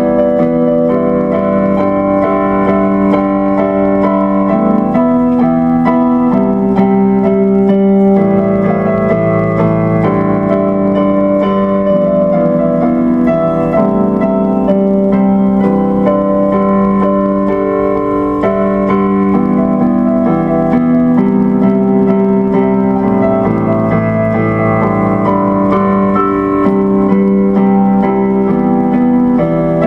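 Background music: electric piano or keyboard playing sustained chords.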